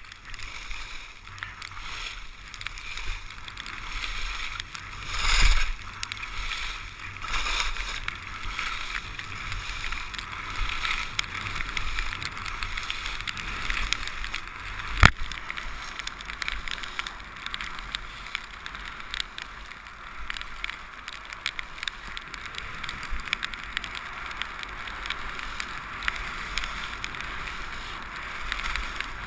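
Skis sliding and scraping on packed snow, a steady hiss with louder swells as the skier turns, and a low rumble of wind on the camera microphone. A single sharp click about halfway through.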